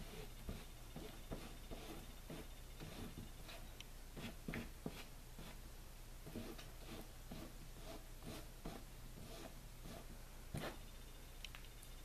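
Crumpled plastic wrap dabbing paint onto a canvas board: faint, irregular soft taps and crinkles, over a steady low hum.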